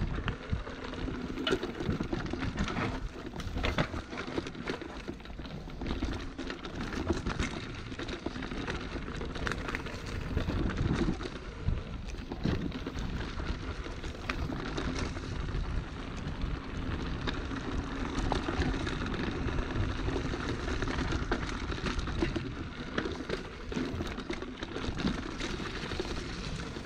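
Wind buffeting the microphone over a continuous rumble and a dense scatter of small clicks and knocks from moving along a trail.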